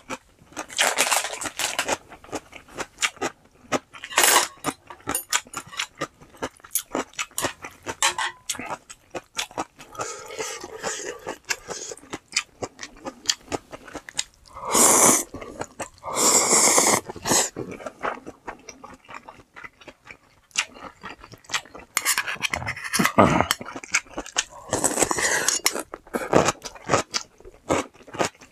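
Close-up eating sounds: crisp crunching and chewing of chonggak (ponytail radish) kimchi and spicy instant ramen, with a few longer noisy slurps of noodles about halfway through and again near the end.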